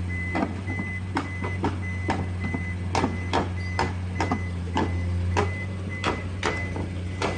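Tracked excavator travelling forward with its diesel engine running steadily and its travel alarm beeping about twice a second. Frequent sharp knocks and clanks come from the steel tracks going over the logs.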